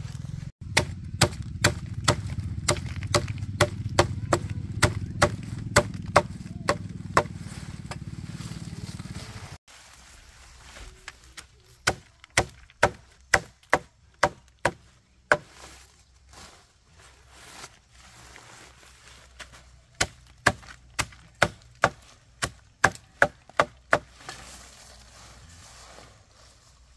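Blade chopping in three runs of quick, sharp strokes, about two a second. A low steady rumble sits under the first run and cuts off abruptly about ten seconds in.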